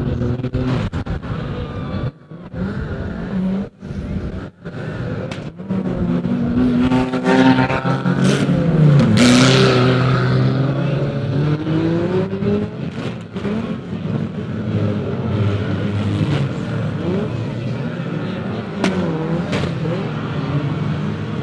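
Banger racing cars' engines revving and running hard as they race, with pitches rising and falling as the cars accelerate and pass. The sound breaks off abruptly a few times in the first five seconds, and is loudest about nine seconds in.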